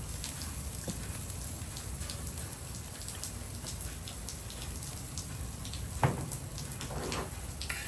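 Steady rain, with many separate drops ticking, and one sharp knock about six seconds in.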